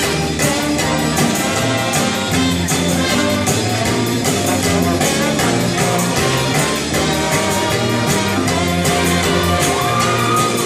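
Background music with a steady beat, full of sustained instrument notes.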